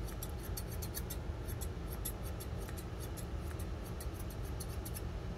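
Thinning shears snipping through the hair on top of a Papillon's foot: quick, repeated crisp snips, several a second, that stop about five seconds in.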